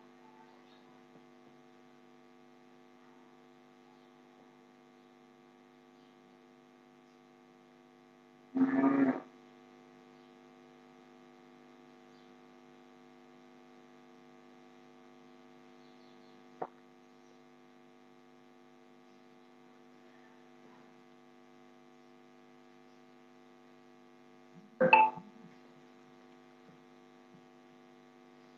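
Steady electrical mains hum made of several level tones. Twice, about nine seconds in and again near the end, a short louder sound of under a second breaks in, and a single click comes a little past the middle.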